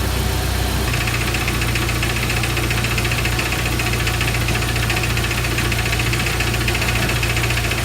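A 1999 Jeep Wrangler TJ engine idling with a rapid, even knocking rattle that grows plainer about a second in. It is a knock heard only at idle that goes away when revved, which the owner places at the front of the engine and suspects is timing chain slap or a front bearing.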